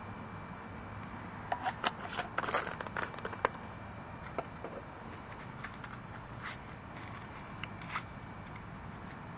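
Crinkly clicks and scrapes of hand-handling fire-lighting materials at a small tin-can wood gas stove, a dense cluster about two seconds in, then a few scattered ticks.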